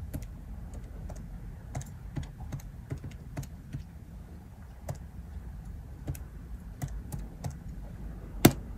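Keys of a Casio PB-300 programmable calculator being pressed one after another, an irregular run of small clicks as a line of BASIC is typed in, with one louder click near the end.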